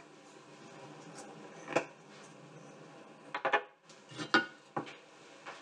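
Kitchen clatter: dishes and utensils knocking and clinking in a few sharp separate strokes, with a quick cluster about three and a half seconds in.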